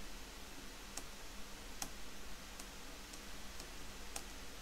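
A few sparse, faint computer keyboard keystrokes, about six clicks spread over four seconds, over a low steady electrical hum.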